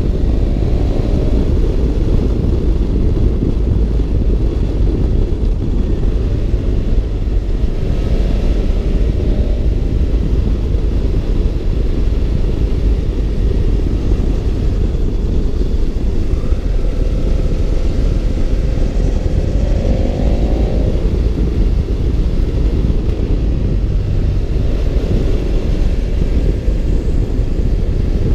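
A BMW F650 GS Twin motorcycle on the move: heavy wind rumble on the microphone over its parallel-twin engine, whose revs rise a few times as it pulls.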